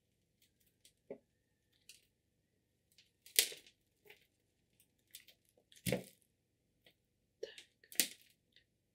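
Intermittent rustling and crackling with soft knocks as a houseplant and its root ball of potting soil are handled for repotting; the loudest, a dull knock, comes about six seconds in.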